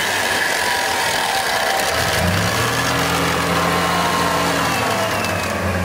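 Engine of a 4x4 SUV stuck in mud, running steadily. About two seconds in it settles into a louder, steady low drone.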